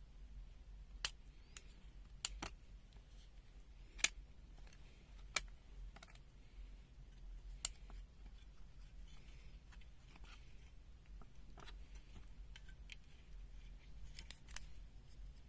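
Scattered faint clicks and taps as the opened ZOYI ZT-M2H multimeter's circuit board and plastic parts are handled, the sharpest about four seconds in, over a low steady hum.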